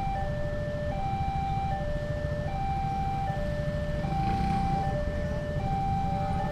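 Railway level-crossing warning signal sounding a steady alternating two-note electronic chime, a higher note then a lower one, the pair repeating about every second and a half, over a low rumble of idling road traffic. The chime means the barriers are down and a train is approaching.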